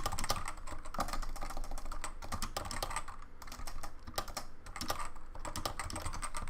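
Typing on a CoolerMaster Novatouch TKL keyboard with Topre switches and ABS doubleshot keycaps: a quick, uneven run of keystrokes with a couple of short pauses.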